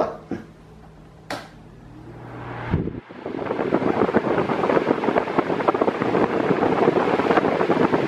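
Mondial Maxi Power Black 40 six-blade table fan starting up: a click about a second in, then a rising whoosh as the blades spin up. From about three seconds in there is a steady rush of air, buffeting the microphone.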